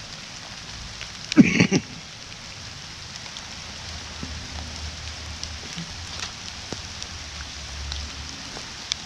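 Light rain pattering steadily, with scattered drop ticks. A brief voice-like sound about a second and a half in is the loudest thing.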